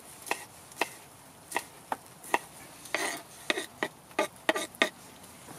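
Kitchen knife chopping green onions on a cutting board: a series of sharp, uneven taps of the blade hitting the board, about two a second.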